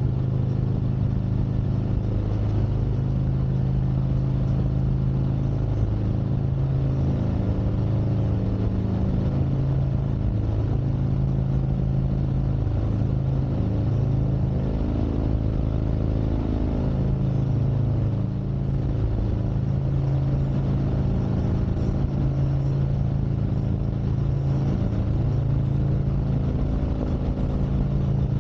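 Harley-Davidson Street Glide Special's Milwaukee-Eight 114 V-twin running under way, its pitch rising and falling as the throttle and revs change.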